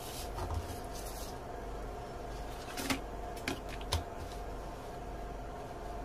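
Paper and a tape measure rustling as they are moved, then three light knocks as a plastic pattern ruler is set down on the paper, over a steady background hum.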